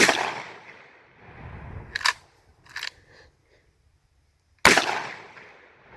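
Pump-action shotgun fired twice, about four and a half seconds apart, each shot with a long echoing decay. Between the shots the pump is racked, back and forward, as two short clacks about two and three seconds in.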